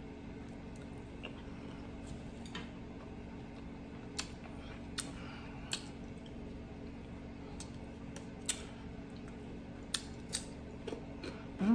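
Close-up eating mouth sounds: scattered sharp wet clicks and smacks from chewing and licking fingers, about a dozen spread over the stretch, over a steady faint hum. A short voiced 'mm' comes right at the end.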